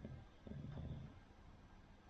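A sleeping Cavalier King Charles Spaniel breathing softly, with one faint, low snoring breath about half a second in: the snore of a short-nosed breed.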